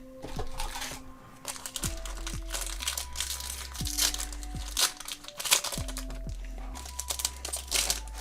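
Foil trading-card booster pack crinkling and rustling in the hands as it is handled and torn open, over background music with steady held notes and a low bassline.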